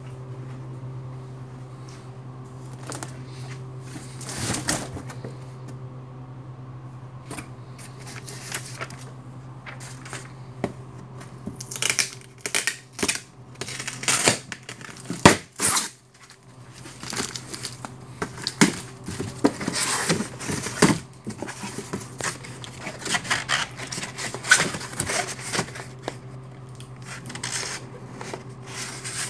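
Cardboard egg boxes being handled and opened: irregular rustling, scraping and knocks of stiff cardboard, loudest around the middle, over a steady low machine hum.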